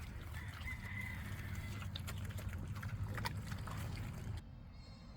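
Pigs and piglets grunting softly and feeding, with small clicks and crunches; the sound cuts off abruptly about four and a half seconds in.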